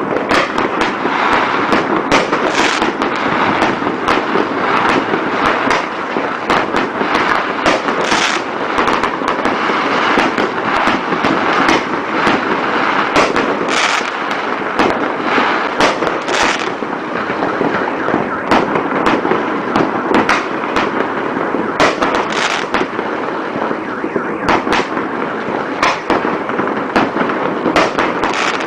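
Many fireworks and firecrackers going off together: a dense, continuous crackle and popping, with sharper bangs standing out every second or two.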